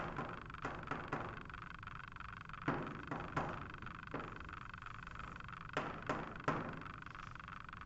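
Chalk tapping and scraping on a blackboard as lines are drawn: short, sharp knocks in irregular clusters over a steady background hiss.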